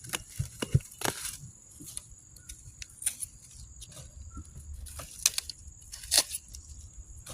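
Dry brown squash leaves being torn off and cleared, heard as irregular tearing and rustling, a few louder tears standing out about a second in and again near the end.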